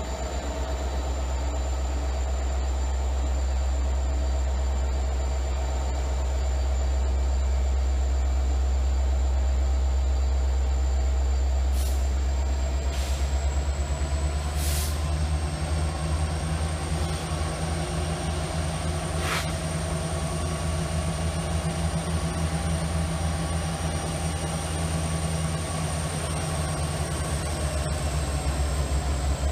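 Diesel locomotive engine of an EMD SD90MAC (SD9043MAC) running with a heavy, steady rumble as the coal train rolls slowly past. From about halfway the engine note grows heavier and pulses evenly. A few sharp clicks sound around the middle.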